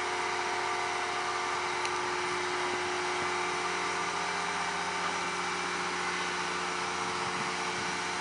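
Heavy machinery running steadily: a constant mechanical hum with several steady tones and no change in level.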